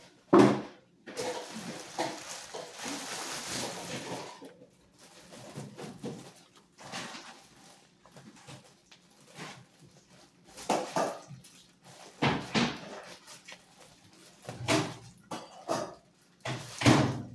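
Black plastic bag rustling and crinkling as it is handled and pulled open by hand, in irregular bursts, with a sharp thump just after the start.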